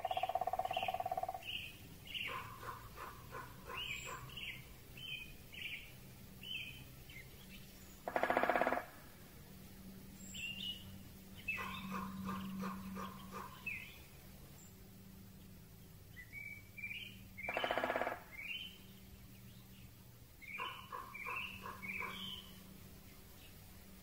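Great spotted woodpecker drumming on a tree: two short, fast rolls, the first about eight and a half seconds in and the second about ten seconds later. Between them other birds sing repeated runs of short notes and high chirps, and a drawn-out call sounds right at the start.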